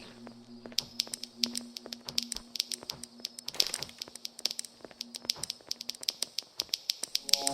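Rapid, irregular small clicks and taps over a faint steady hum; the hum fades out about six seconds in, and a new pitched tone starts near the end.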